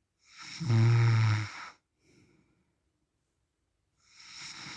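A man snoring in his sleep: one long, loud, low snore lasting about a second and a half, then a pause, with the next snore starting to build near the end.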